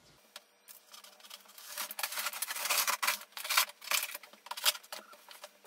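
Cardboard TV box being worked open by hand: an irregular run of scraping, rubbing and rustling of cardboard, heaviest in the middle.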